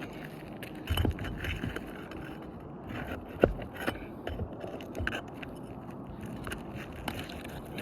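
Nails being pulled from roof shingles: a tool scraping and clicking against the shingles, with sharper knocks about a second in and again near the middle.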